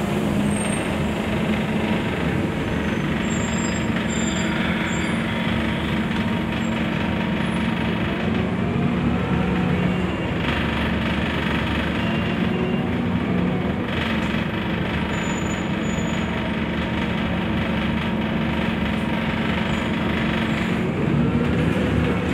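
Cabin noise of a Scania articulated bus under way: a steady low engine drone over road rumble, its pitch shifting slightly now and then.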